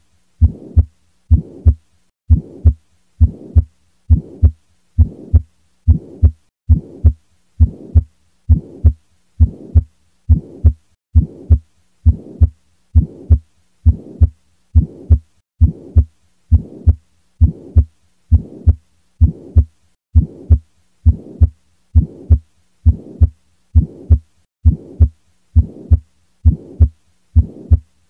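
A heartbeat, steady lub-dub pairs of low thumps at a little over one beat a second.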